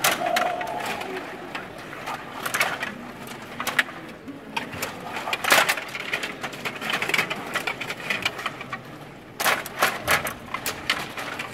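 Stiga table hockey game in play: irregular sharp clicks and clacks of the puck striking the plastic players and boards, mixed with the rattle of the metal control rods being pushed and spun. A quick run of loud clacks comes about nine and a half seconds in.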